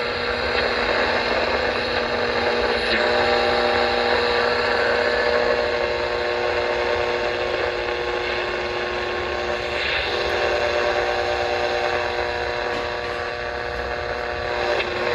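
JCPenney 680-3802B clock radio's speaker giving out steady static hiss with several steady whining tones over it, tuned between stations with nothing clear coming through.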